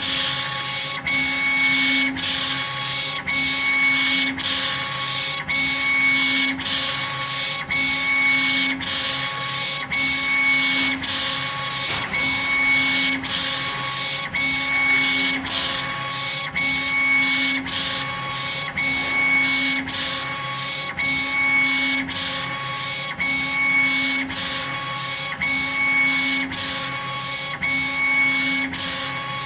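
CO2 laser engraving machine at work on stone, its head sweeping back and forth: a motor whine that comes and goes about every two seconds, with regular clicks over a steady hum.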